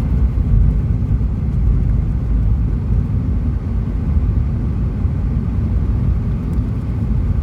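Steady low rumble of a moving car heard from inside the cabin: tyre and engine noise at road speed.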